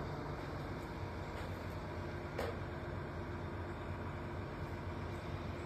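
Steady low mechanical hum with a faint steady tone over it, and a single light click about two and a half seconds in.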